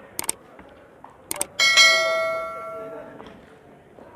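Subscribe-button animation sound effects: two pairs of quick mouse clicks, then a notification-bell ding that rings out and fades over about a second and a half.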